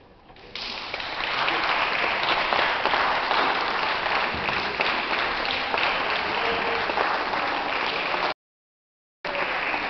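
Audience applauding, a dense patter of many hands clapping that breaks out about half a second in and holds steady. It cuts off abruptly near the end for about a second, then resumes.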